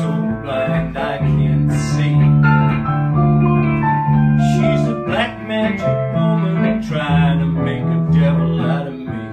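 Guitar and a Dexibell Vivo P7 digital stage piano playing together, with a melody over sustained chords.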